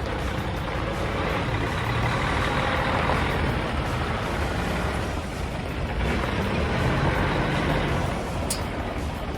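Decorated heavy trucks with their diesel engines running, a steady low rumble under a wash of noise.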